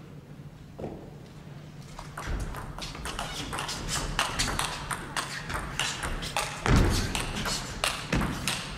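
Table tennis rally: the ball clicking off the bats and the table in quick, irregular succession, starting about two seconds in, with two heavier low thuds near the end.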